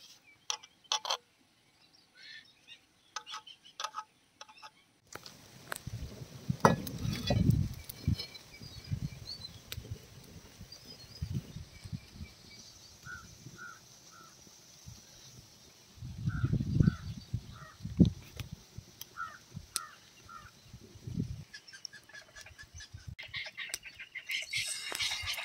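Wet clicks of marinated fish steaks being mixed by hand, then birds chirping in short pairs and triplets over two spells of low rumbling. Near the end, oil on a hot iron tawa starts sizzling.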